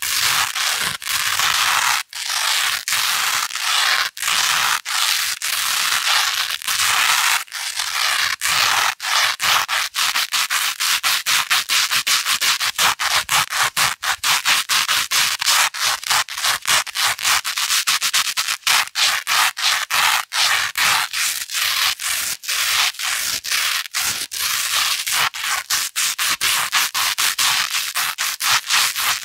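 Velcro hook tape being rubbed and scratched against loop tape in rapid repeated strokes, a crisp, crackly scratching with brief gaps between strokes.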